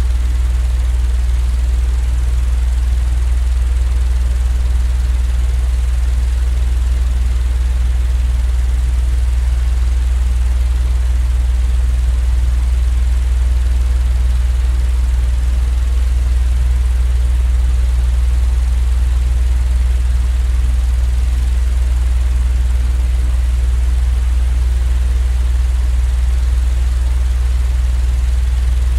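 Steady, unchanging low-pitched mechanical drone with a faint hiss over it, played as sleep-aid white noise.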